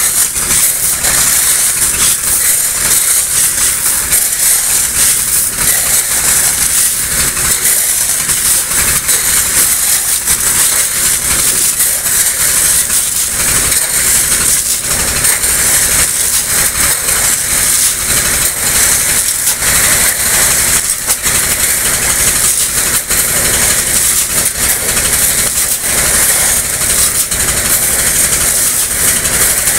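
A river dredge's pump engine runs steadily while its discharge pipe gushes a stream of water and gravel into a truck bed with a continuous rushing hiss. Pebbles clatter and shovels scrape through the wet gravel.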